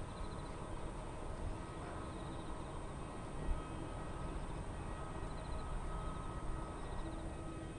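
Boeing 787-8 turbofan engines running as the airliner rolls away at the start of its take-off, heard from behind: a steady rumble with a thin whine that rises a little in pitch in the second half. A single short knock a little before halfway.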